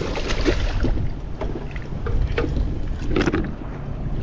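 Wind rumbling on the microphone, with splashing and a few sharp knocks as a hooked crevalle jack thrashes at the side of the boat and is grabbed and hauled aboard.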